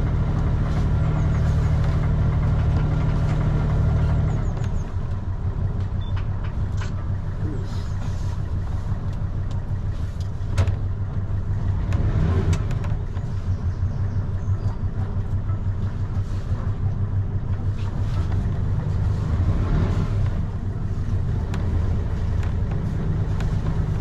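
Sailing yacht's engine running steadily as the boat motors along, a little quieter from about four seconds in. A single sharp knock about ten seconds in.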